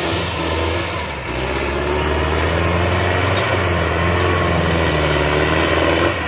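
Sonalika 750 tractor's turbocharged diesel engine running steadily under load as it pulls a disc harrow through wet soil, with a brief dip in level about a second in.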